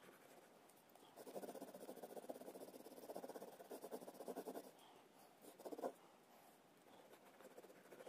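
Coloured pencil scribbling on paper, shading with quick back-and-forth strokes: a long run of fast scratching, then a short burst about six seconds in.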